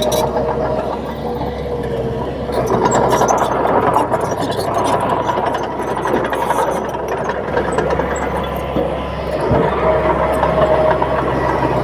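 Komatsu D31P crawler bulldozer's diesel engine running steadily, with a held whine over the engine note and faint metallic clatter.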